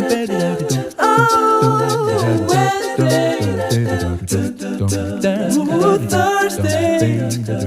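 Vocal music: several voices singing in harmony, with long held notes over a low sustained part and light percussive clicks.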